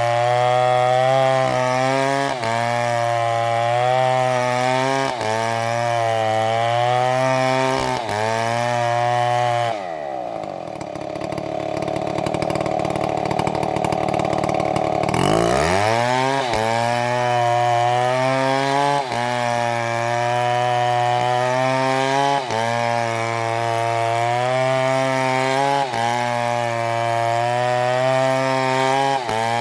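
Two-stroke STIHL chainsaw running at high revs, its pitch dipping and recovering about every second and a half as it cuts. About ten seconds in the revs fall away to a low idle for some five seconds, then the saw revs back up and carries on.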